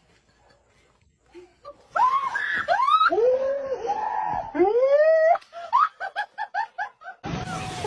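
A person shrieking with laughter: long high cries that rise and fall, then a quick run of short laughs at about six a second, after a brief hush.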